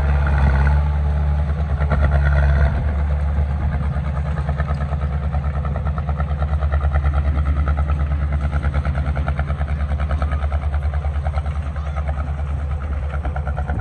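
Heavy construction-machine diesel engine running close by, with a deep steady hum and fast even pulsing. It works harder for the first two and a half seconds, then settles to a slightly quieter steady run.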